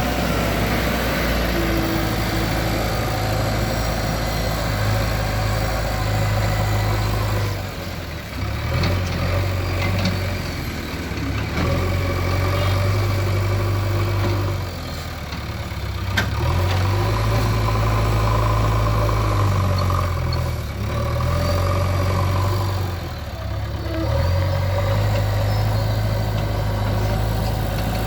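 JCB 3DX backhoe loader's diesel engine running steadily, its note dipping and picking up again a few times as the machine works.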